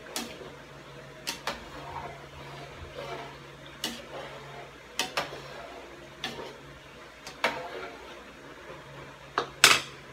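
Metal cooking utensil knocking and clinking against a pot while stirring boiling macaroni noodles: about a dozen irregular knocks, the loudest near the end, over a steady low hum.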